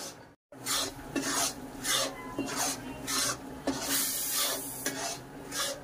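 Metal spatula scraping round a metal kadhai, stirring besan as it roasts in ghee for halwa, in repeated strokes about one and a half to two a second. The sound cuts out briefly just after the start.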